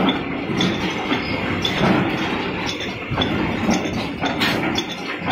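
Automatic cartoning machine running: a steady mechanical clatter with sharp metallic clinks repeating about twice a second as the machine cycles.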